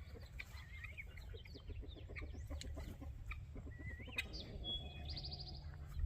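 Poultry flock clucking and chirping, with many short calls overlapping and a quick run of clucks in the first few seconds, over a steady low rumble.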